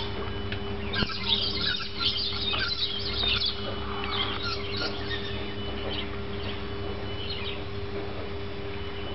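Small birds chirping, a flurry of quick high calls from about a second in that thins out after about five seconds.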